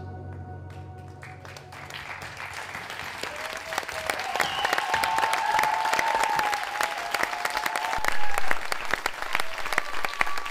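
Ambient music fading out as audience applause starts with scattered claps and quickly builds to full, dense clapping, loudest near the end, with voices cheering over it for a few seconds in the middle.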